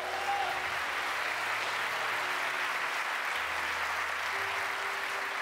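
Congregation applauding steadily, with soft held low notes from an instrument underneath.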